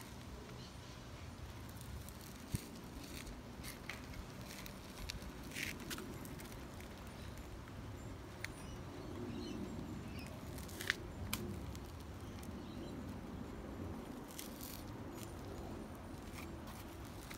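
Faint steady outdoor background hum with scattered small clicks and ticks.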